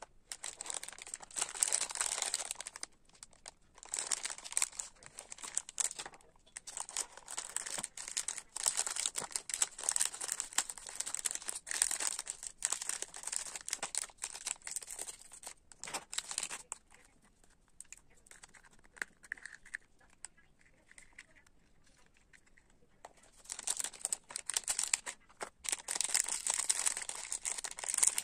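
Clear plastic wrappers of bubble-tape gum packets crinkling and tearing as they are handled and ripped open. It comes in bursts, with a quieter lull about two-thirds through before the crinkling starts again.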